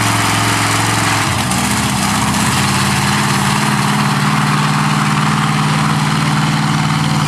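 Monster truck engine running steadily; its pitch drops about a second in and settles at a new steady pitch a couple of seconds in, as the truck moves off.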